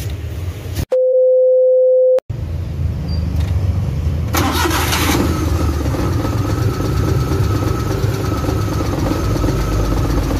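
A loud steady electronic beep lasting about a second and a half, then about four seconds in the Suzuki F6A three-cylinder engine starts and runs at a steady idle. It is misfiring on one cylinder, which the mechanic traces to a bad spark plug.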